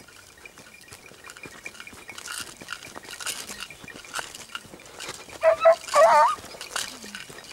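A beagle gives two short bays, wavering in pitch, about five and a half seconds in: a hound giving tongue on a hare's trail. Under it, soft footsteps crunch on a dirt track.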